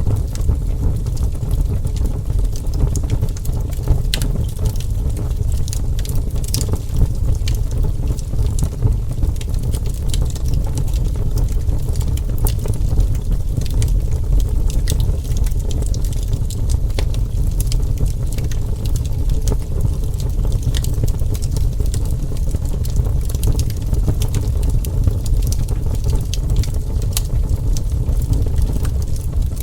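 Burning wood fire with a steady low rumble and frequent sharp crackles and pops.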